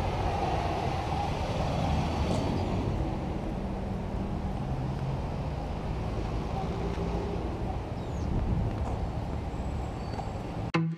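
Steady street traffic noise, a continuous hum and rumble of passing vehicles. Guitar music cuts in abruptly near the end.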